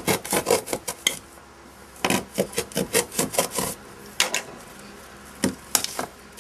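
Hammer driving nails into thin wood panelling: quick runs of sharp strikes, then a few single blows near the end.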